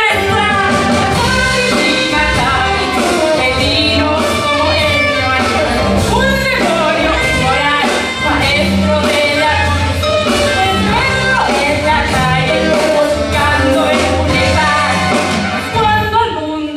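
Theatre band playing an instrumental dance section of a stage musical, with a strong bass line under the melody.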